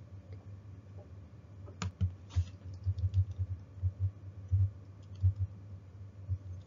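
Computer keyboard typing: irregular dull key taps with a few sharper clicks, starting about two seconds in.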